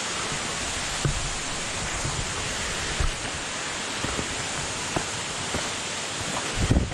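Steady rush of falling water from the creek's waterfalls, with a few soft thumps of footsteps on the dirt trail, the loudest near the end.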